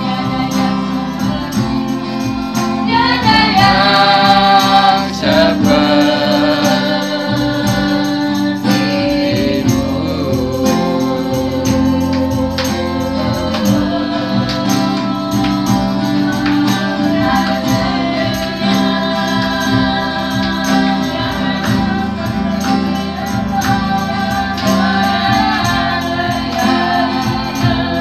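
A woman singing a worship song into a microphone, amplified through a PA, with acoustic guitar accompaniment and other voices singing along.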